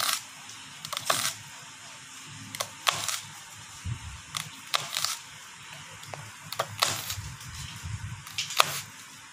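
Chef's knife chopping an onion on a cutting board: sharp, irregular knocks of the blade striking the board, roughly one or two a second.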